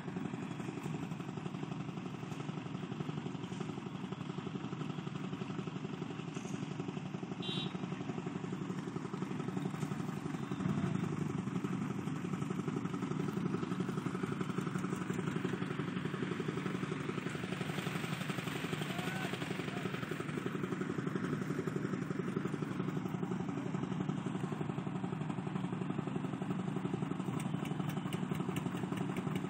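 Engine of construction machinery running steadily with an even low hum. A wider rushing sound swells and fades about halfway through.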